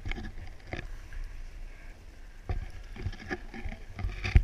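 Wind rumbling on a GoPro microphone on a snowy summit, with irregular knocks and thumps from gear and handling; the loudest thump comes near the end.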